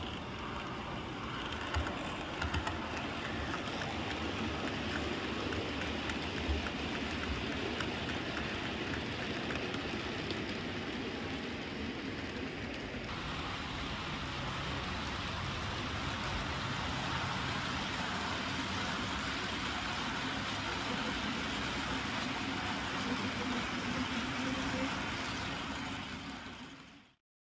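OO gauge model trains running on the layout: a steady rumbling hiss of wheels on track and running gear. Its character changes about halfway through, and it fades out near the end.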